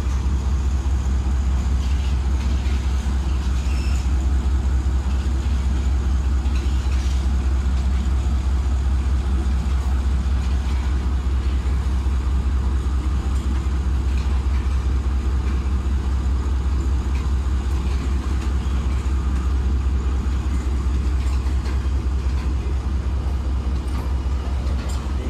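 Passenger coaches of a departing express train rolling past along a station platform: a steady low rumble of wheels on the rails, with a few faint clicks.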